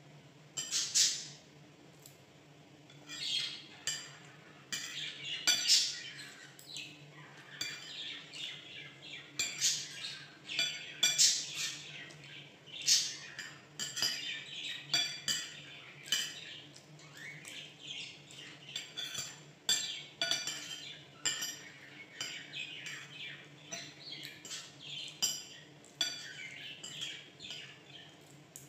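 A pet cage bird chirping over and over in short, high calls, with spoon and fork now and then clinking against a plate.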